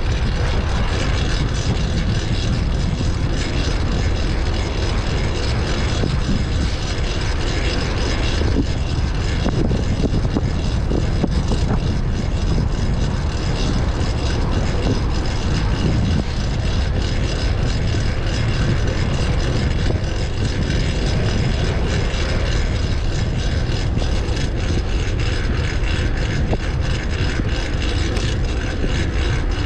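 Wind buffeting the microphone on a moving fixed-gear bicycle, a steady low rush throughout, with faint road and drivetrain noise underneath.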